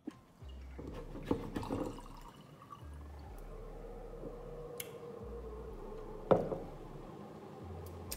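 Water being poured into a drinking glass, with a few knocks from the glass being handled and one louder knock near the end.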